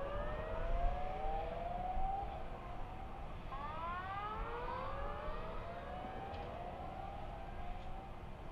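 Tsunami warning siren sounding in repeated rising sweeps, each about a second or so long, overlapping one another as they echo and layer, over a faint low rushing background.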